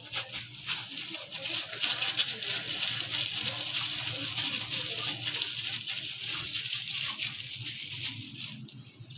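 A plastic glove crinkling and soft, oiled dough squishing as the dough is pinched off and rolled into balls by hand: a steady crackly rustle that fades near the end.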